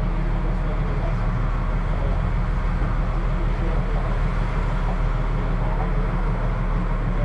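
Steady low rumble of a boat under way: engine drone mixed with wind buffeting the camcorder microphone.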